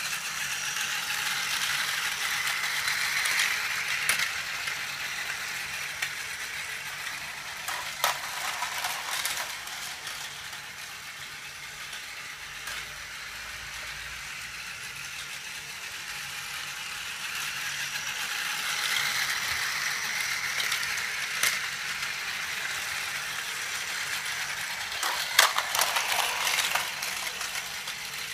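Plarail toy trains running on plastic track: small battery motors and gears whirring with the wheels rattling, swelling twice as trains pass close. Sharp clicks about eight seconds in and again near the end.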